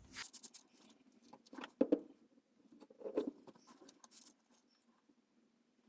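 Faint, scattered rustling and light taps from hands working around the furnace's gas-line union, in a few short clusters.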